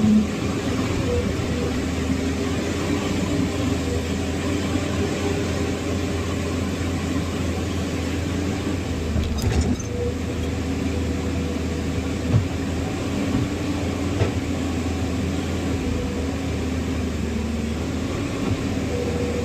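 Heavy diesel engine running steadily at a constant speed, with a few brief knocks partway through.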